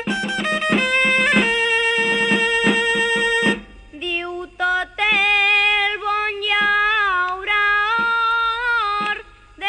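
Dolçaina (Valencian shawm) playing over tabal drum strokes, breaking off about a third of the way in; then a solo voice sings an albà line in a high, wavering, ornamented style.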